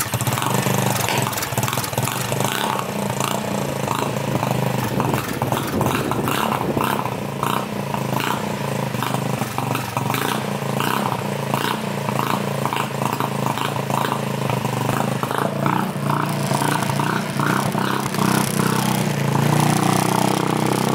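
Scooter engine running, a 150cc GY6 four-stroke single through an aftermarket exhaust, with an even pulsing beat. It gets louder toward the end.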